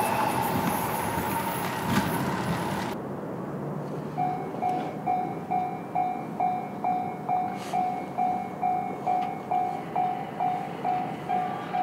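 An electric train passes and its noise stops abruptly about three seconds in. Then the Japanese level crossing's electronic warning bell is heard ringing a steady, even-pitched ding about twice a second while the barriers stay down.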